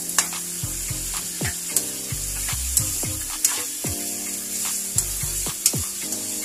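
Freshly added raw chicken pieces sizzling as they fry in a hot wok, with a steady hiss. A metal spatula stirs them, clinking sharply against the pan about six times.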